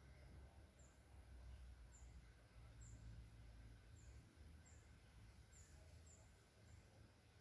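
Near silence outdoors: a faint low rumble, with faint short high chirps recurring every second or so.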